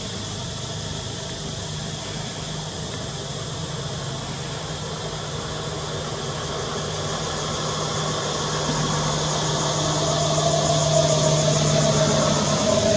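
A motor engine running steadily with a low hum, growing louder over the second half.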